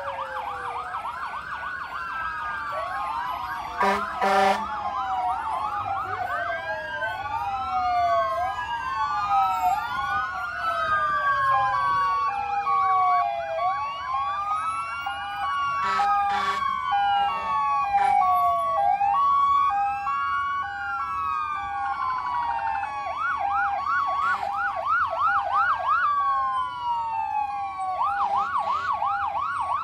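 Several fire truck sirens sound at once, overlapping rising and falling wails that switch to fast warbling yelps near the end, with a steady two-note hi-lo tone in the middle. Short horn blasts cut in about four seconds in and again around the middle.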